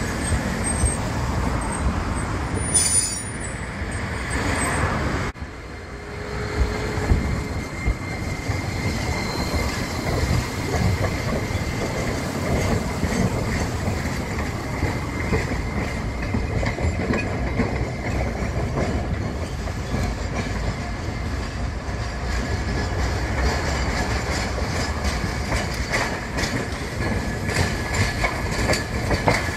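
Streetcars running on street track: a low-floor articulated tram passes close, then steel wheels rumble and click over the rail joints as trams come into the stop, with a faint steady wheel squeal. The clicks crowd together near the end as an older single-car tram draws near.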